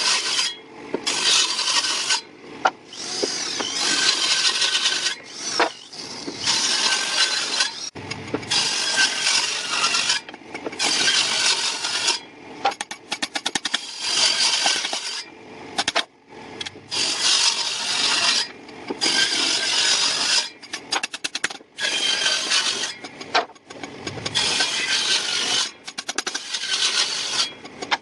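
A tool rubbing and rasping over wood in repeated strokes, each lasting about a second or two with short breaks between. Rapid ticking runs through a couple of the strokes.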